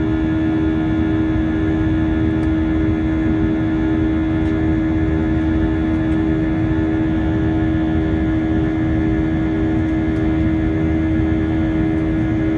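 Cabin noise of an Airbus A321-200 climbing after takeoff, heard by the wing. Its IAE V2500 turbofan engines at climb thrust give a steady buzzing drone: one strong steady tone with several fainter ones above it, over a low rumble.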